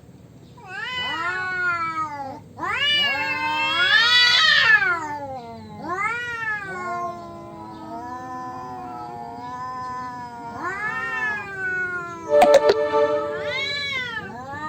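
Two tomcats caterwauling at each other in a territorial standoff: long, wavering yowls that rise and fall in pitch, a lower voice and a higher one overlapping, loudest about four seconds in. A short sharp burst cuts in near the end.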